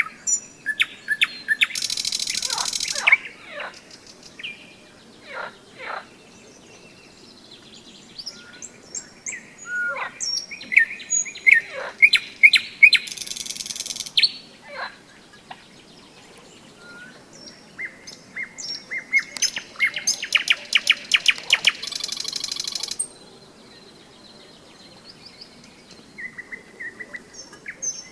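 A nightingale singing in phrases of clear whistles and sharp notes with pauses between them. Three of its phrases are loud, fast, rattling trills, the longest lasting about four seconds in the second half.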